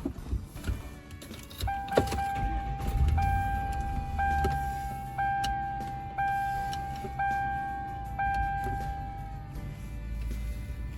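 Car's warning chime dinging about once a second, eight or so times, over the low hum of the engine running. A sharp click comes just before the first chime.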